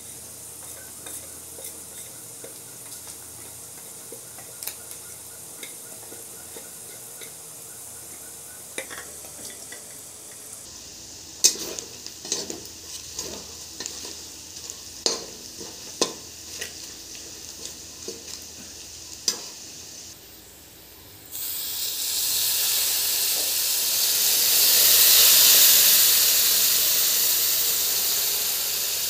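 Onions and spices frying gently in a metal kadai, then a metal spatula stirring them, with sharp clicks and scrapes against the pan. Near the end, water poured into the hot pan sets off a loud sizzling hiss that swells and then eases a little.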